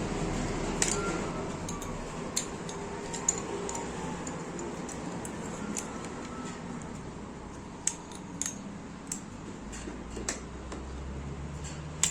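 Scattered sharp metallic clicks and clinks of a wrench and parts being handled while the grinding disc is loosened from a pneumatic angle grinder, over a steady low background that slowly fades.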